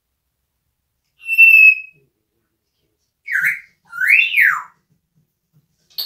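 African grey parrot whistling: one steady high note about a second in, then a short note and a longer whistle that swoops up and back down.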